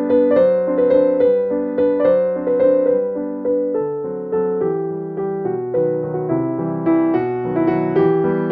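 Background piano music, a melody of evenly paced notes struck a few times a second.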